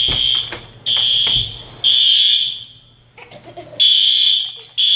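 Fire alarm going off, a loud high-pitched beep repeated in a pattern of three beeps about a second apart, a pause, then the next set starting. It is sounding because of smoke from a fire that has just been put out.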